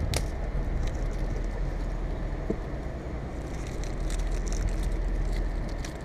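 Steady low rumble of a truck engine running, with faint scattered crackling and small clicks as self-fusing rubber splicing tape is unrolled and its backing liner pulled off.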